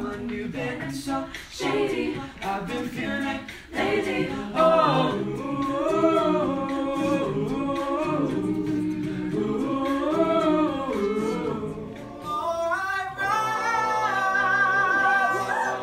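An a cappella group singing, with a lead line rising and falling over backing voices and sharp percussive clicks in the first few seconds. About thirteen seconds in it cuts to another a cappella group holding long, layered chords.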